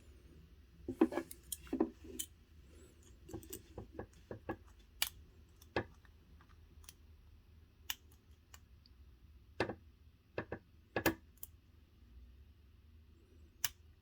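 Lock pick and tension wrench working inside a Sesamee pin-tumbler padlock: irregular small metallic clicks and light scrapes as the serrated pins and spools are set, with a few louder clusters of clicks.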